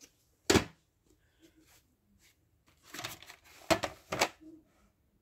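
Plastic VHS cassette being handled: a sharp click about half a second in, then a run of rustling and clacking with two sharper knocks a little past the middle.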